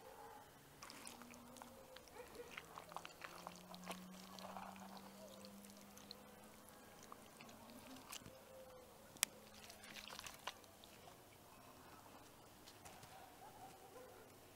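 Faint scraping and clicking of a utensil working through a baked salt crust and lifting salmon flesh from a metal tray, with one sharp click about nine seconds in. A faint steady low hum runs under the middle of it.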